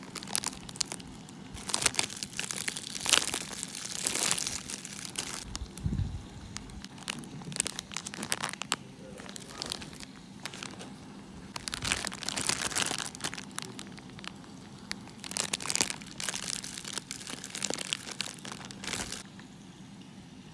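Clear plastic bread-bun wrappers crinkling in irregular spurts as they are handled and turned over, with a dull bump about six seconds in.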